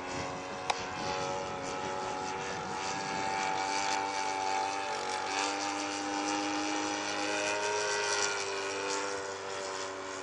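Model aeroplane's engine running in flight, a steady drone whose pitch drifts slowly up and down, over wind noise on the microphone. A sharp click comes under a second in.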